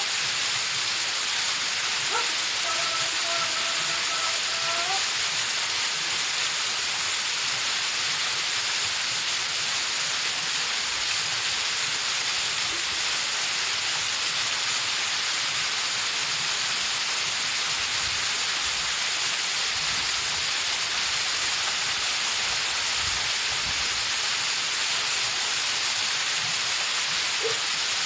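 Steady rush of a tall, thin waterfall pouring onto rock, an even hiss of falling water.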